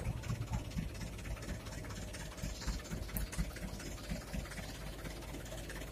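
Mitsubishi Canter dump truck's diesel engine idling, a steady low rumble.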